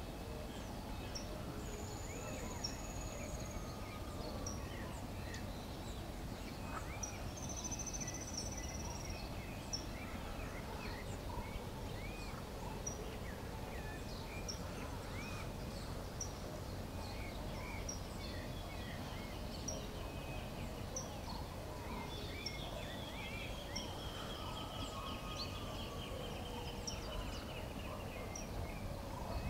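Outdoor bird chorus: many small birds chirping and whistling at scattered moments, with a few short high trills and a longer trill near the end, over a steady low background noise.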